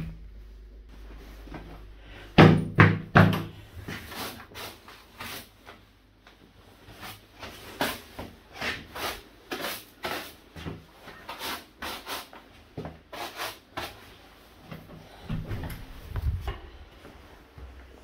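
Boots crunching through packed snow at a steady walk, about two steps a second. A few heavy thumps come about two and a half seconds in.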